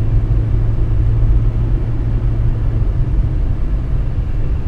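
A four-wheel-drive vehicle driving: a steady low rumble of engine and road noise, with an engine hum that eases off about halfway through.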